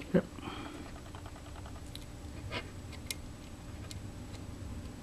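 Faint scattered ticks and clicks from a small screw and plastic rotor-blade parts being handled while the screw is started through the head stiffener, over a low steady room hum. One brief louder sound with a short falling pitch comes just after the start.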